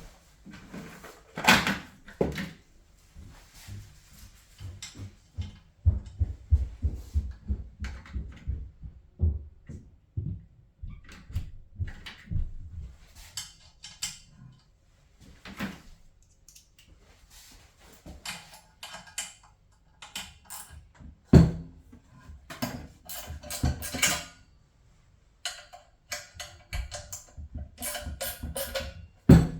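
Irregular clicks, knocks and clatter of hand tools and metal parts being handled at a gas boiler, with a loud knock about 21 seconds in.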